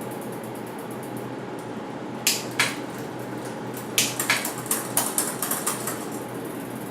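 Mountain bike drivetrain clicking by hand: two sharp clicks, then a quick, uneven run of clicks lasting about two seconds.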